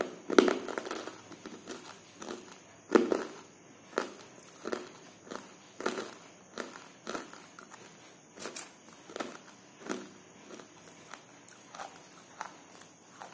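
Close-up crunching of a person biting and chewing hard, dry chunks of edible clay: a string of sharp cracks about every two-thirds of a second, the loudest bites near the start and about three seconds in.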